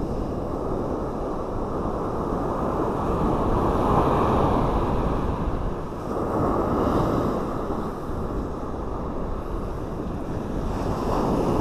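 Ocean surf washing onto a sand beach, swelling louder about four seconds in and again a few seconds later, with wind blowing on the microphone.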